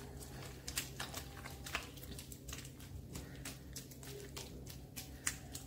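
Silicone spatula stirring thick, sticky churro dough in a steel kadhai, making soft irregular squelches and light ticks as beaten egg is worked into the warm dough.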